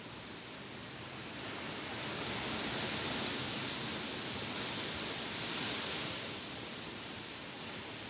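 Strong wind gusting through leafy trees, a rushing rustle of leaves that swells about two seconds in, surges again around five seconds, and eases off near the end.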